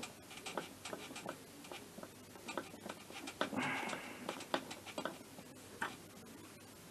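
Scattered small clicks and taps of hands handling fittings on a moped engine and pressing a small plastic plug into place, with a short burst of rustling noise a little past halfway.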